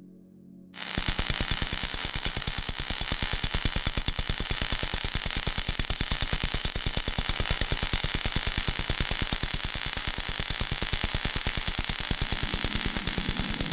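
A harsh hissing noise that starts suddenly about a second in and pulses rapidly, many times a second, without letting up.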